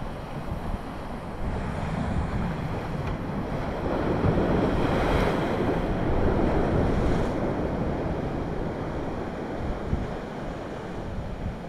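Sea surf washing and breaking, swelling to a louder surge about halfway through, with wind rumbling on the microphone.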